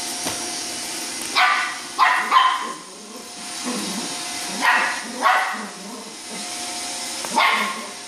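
Shetland sheepdog puppy barking at a running Roomba robot vacuum: six short, high barks in bunches a second or two apart. Under the barks runs the steady whir of the Roomba.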